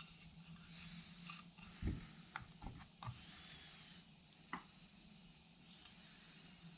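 Faint, scattered clicks and light knocks of small metal differential parts being handled, with a soft thump about two seconds in, over a low steady hiss.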